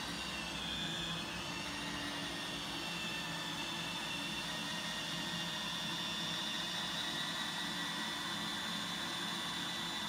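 Roomba 960 robot vacuum running with a steady whir and a thin high whine as it drives across carpet to its charging dock, homing on its own now that the broken wire to its docking IR receiver has been repaired.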